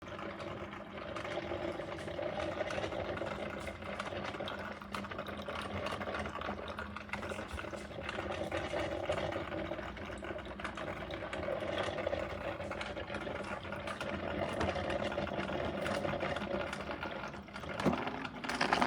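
Brentwood KT-2150BK iced tea and coffee maker brewing: hot water gurgling and spitting through it, with a steady rattling hum. It starts suddenly.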